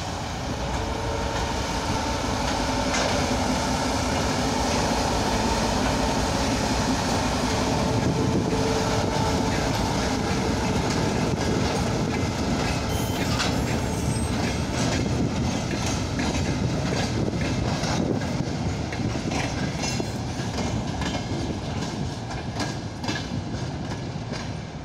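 TGM4 diesel-hydraulic shunting locomotive moving a string of wagons slowly past, its diesel engine running steadily. The wheels click over the rail joints, and the clicks come more often in the second half.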